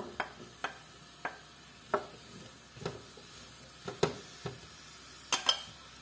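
Wooden spoon knocking and scraping against a stainless steel frying pan as sliced onions are stirred into hot oil: a dozen or so short irregular taps over a faint sizzle, with two sharper clicks close together near the end.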